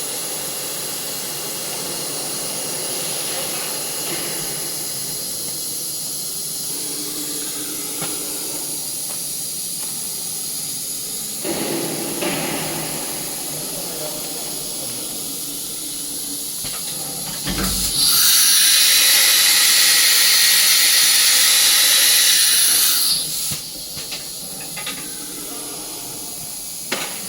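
CNC machine running with a steady hiss and a high whine. About two thirds of the way through comes a knock, then a loud blast of compressed air hisses for about five seconds and cuts off.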